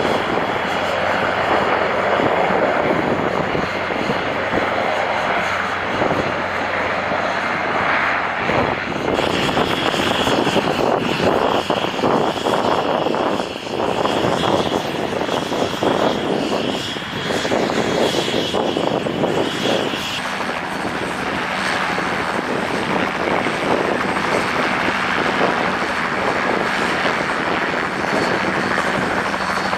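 Helicopter turbine and rotor noise: at first a large twin-turbine Leonardo AW189 coastguard helicopter hovering. About nine seconds in the sound changes to a Bell 505 light turbine helicopter sitting on the ground with its rotor turning, and it changes again about twenty seconds in.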